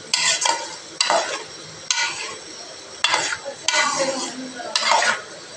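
Long metal spoon scraping and stirring thick beef karahi curry in an aluminium pot, about six strokes roughly a second apart, with the curry sizzling in the quieter stretches between them.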